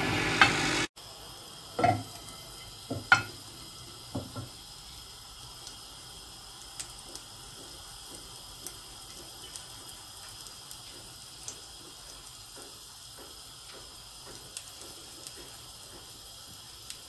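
A few knocks against a nonstick frying pan, then faint, sparse sizzling and ticking of vegetable oil around a single cube of beef liver, dropped in as a test of whether the oil is hot enough for frying.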